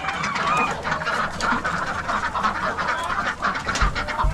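A flock of chickens clucking and chattering, many overlapping short calls, with a few low thumps near the end.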